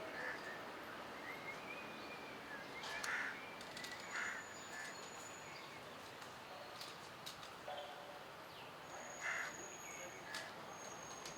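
Faint background noise with a handful of short bird calls scattered through it, plus a few light clicks.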